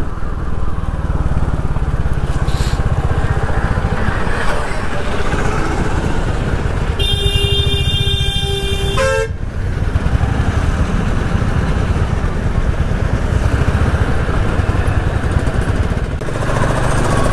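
Royal Enfield Hunter 350's single-cylinder engine running steadily in slow traffic. About seven seconds in, a vehicle horn sounds one long blast of about two seconds.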